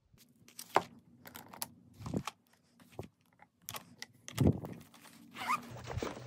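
Packing handling noises: a clear plastic toothbrush sleeve crinkling and small toiletry items clicking and knocking as they go into a suitcase's fabric pocket, in a run of short rustles and taps.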